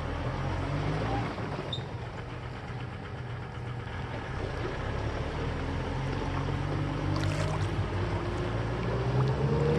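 Farm tractor's diesel engine running under load while it works to pull a truck stuck in mud; the engine note rises over the last few seconds.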